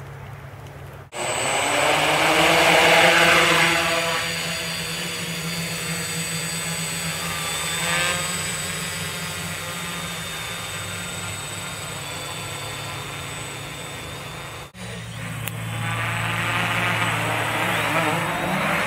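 Quadcopter motors and propellers whirring in flight, their pitch sliding down and up with the throttle. The sound breaks off for an instant about a second in and again near the end.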